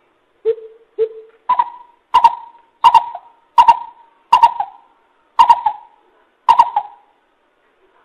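Greater coucal giving its deep hooting call: a series of about nine hoots, each a little under a second apart. The first two are lower, and the rest step up in pitch and get louder before the series stops near the end.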